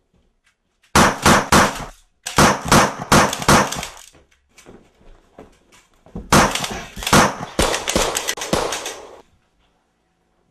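Three volleys of rapid gunshots, about four to five shots a second: a short volley about a second in, a longer one straight after, then the longest about six seconds in.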